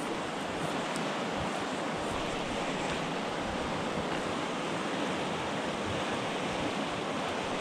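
Fast-flowing mountain river running over rapids: a steady, even rush of white water.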